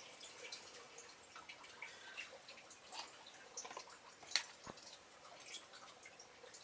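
Faint, irregular light ticks and clicks, the sharpest about four seconds in, from a Beyblade spinning down in a plastic stadium.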